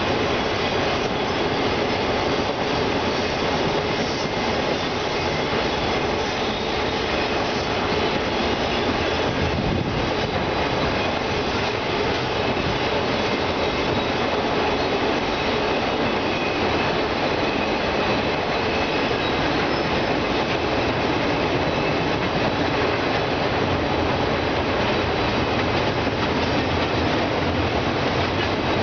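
Union Pacific autorack freight train rolling across a steel girder bridge: a steady, unbroken rolling noise of the passing cars.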